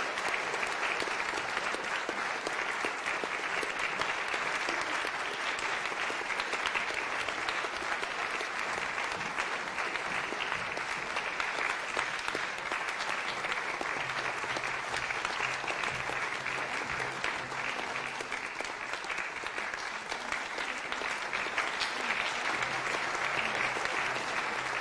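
Audience applauding in a long, steady round of clapping.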